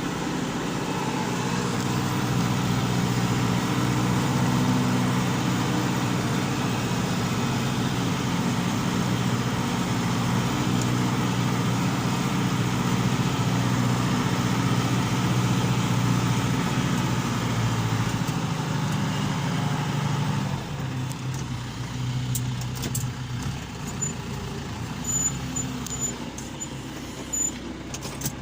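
John Deere tractor engine running steadily while pulling a plough. About twenty seconds in the engine becomes quieter, and a few clicks and knocks follow.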